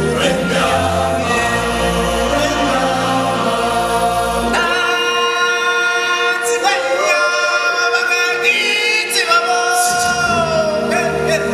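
Live stage-show music: a choir of voices singing long held notes over a band. The low bass drops out for a few seconds in the middle, leaving mostly voices, and comes back near the end.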